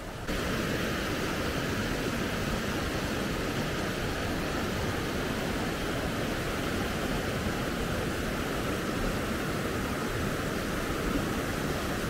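Steady rushing of a small forest waterfall, water pouring over rocks, cutting in abruptly just after the start.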